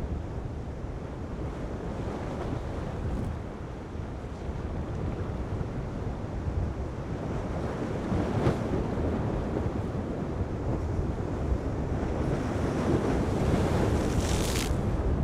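Wind buffeting the microphone over the rush of heavy surf and breaking waves, growing a little louder toward the end. A brief sharp hiss comes near the end.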